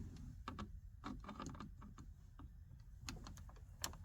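Scattered light clicks and taps of plastic door trim and hand tools being worked while prying at the inside door handle bezel of a 1994 Geo Metro door, irregular and unhurried, with a couple of sharper clicks near the end.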